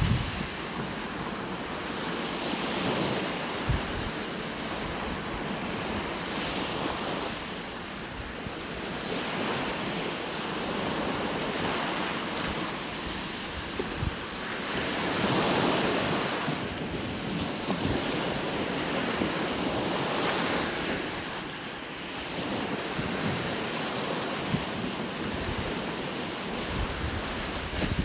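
Small sea waves breaking and washing up a sandy beach, the surf swelling and fading every few seconds. Now and then wind buffets the microphone with a low thump.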